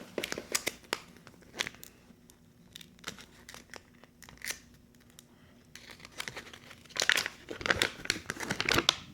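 Paper and plastic packaging being handled, crinkling and rustling with scattered light clicks, then a louder stretch of crinkling about seven seconds in.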